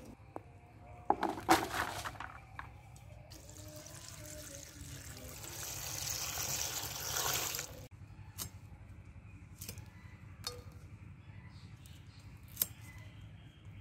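Water poured from a plastic jug onto spinach leaves in a plastic basin: a splashing rush of about four seconds that stops suddenly. After it come a few sharp, separate snaps as brittle dried fish is broken apart by hand against a boti blade.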